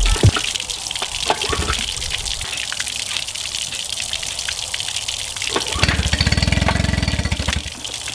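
Garden-hose water gushing and splashing from flushing muffs on an outboard's lower unit, while the recoil starter of a Mercury 8 hp four-stroke outboard is pulled several times. From about six seconds in the engine fires in a rapid low pulsing for about two seconds, then stops: it is hard to start for want of priming.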